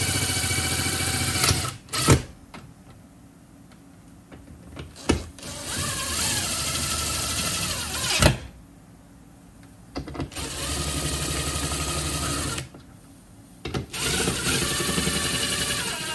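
DeWalt brushless cordless drill driver driving the screws that fix a switchboard enclosure to the wall, running in four spurts of about two to three seconds each. Two sharp knocks come near the end of the first two spurts.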